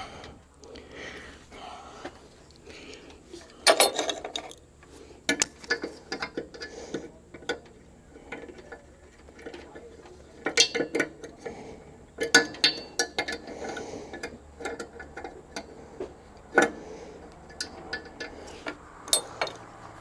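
Irregular clicks and knocks of hand tools working on a semi truck's air-suspension fittings, some coming in quick clusters.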